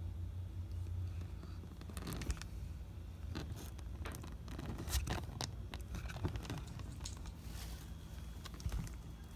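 Savannah monitor lizard eating raw egg from a bowl, its snout and tongue in the yolk: a run of irregular clicks and scrapes.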